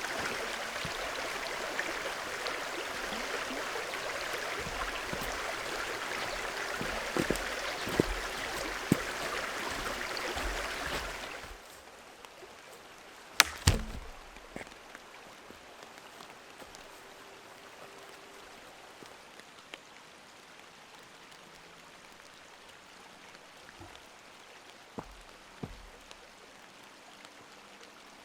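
Steady rushing of water, a forest stream or heavy rain, which cuts off abruptly about eleven seconds in. What follows is a much quieter wet hiss, broken by two sharp clicks shortly after the cut and a few fainter knocks near the end.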